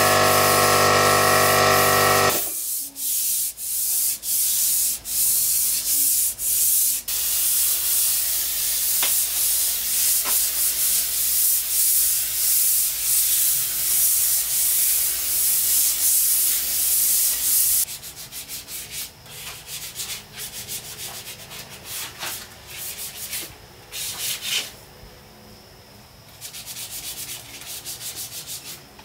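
A portable air compressor's motor runs for about two seconds and shuts off suddenly. Then sandpaper is rubbed by hand along a wooden bench top in quick back-and-forth strokes, loud at first and quieter and more broken after about eighteen seconds.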